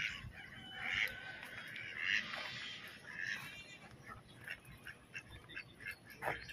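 A flock of domestic and mallard ducks quacking, a busy run of nasal calls in the first few seconds, then fainter, scattered calls.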